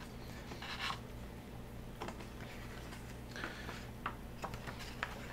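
Faint handling of a large hardcover photo book: a few light taps and clicks of fingers on the book and its pages, with a brief soft paper rustle, over a low steady hum.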